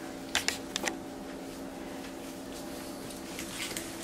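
Towel rubbing over a wet capuchin monkey's fur, a soft rustling, with a few sharp clicks between about half a second and a second in, over a steady low hum.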